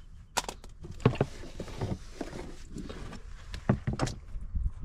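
Engine oil draining from a Tohatsu MFS20 outboard's sump once the drain plug is out, with a run of irregular knocks and clinks from handling the plug and tools.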